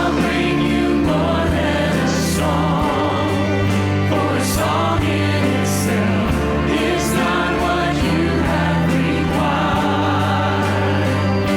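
Live worship band playing a slow worship song with voices singing, a steady bass line underneath and a few soft cymbal swells.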